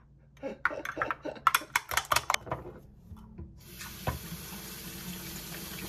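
A fork beats eggs in a ceramic cup, giving a quick run of clicks of metal against the cup. About halfway through, a steady hiss of water running from a tap starts.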